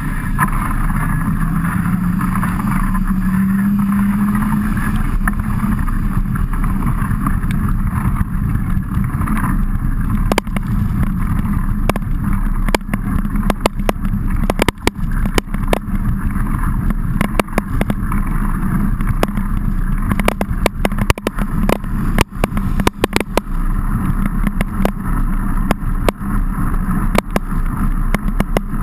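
Muffled riding noise picked up by a bike-mounted camera while cycling in rain: a steady low rumble of wind and tyres, with a low hum rising in pitch over the first few seconds. From about ten seconds in, many sharp clicks and knocks, from raindrops and jolts of the trail on the camera.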